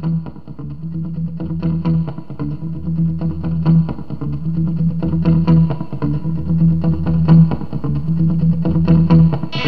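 Instrumental music: an effects-laden guitar playing a repeating low figure with plucked notes on top, fading in and growing louder through the passage.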